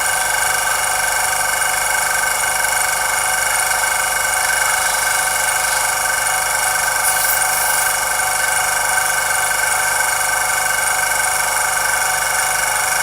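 Small electric airbrush compressor running continuously with a steady high whine. It is not building pressure beyond about 15 psi because air is escaping at one end.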